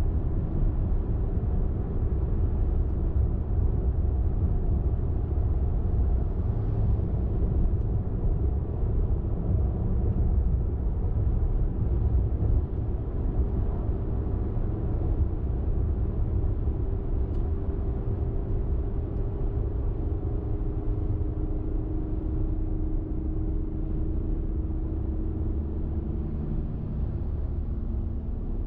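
A car driving on a highway: steady low road rumble and tyre noise, with a faint engine hum whose pitch drifts slowly. It eases off a little toward the end.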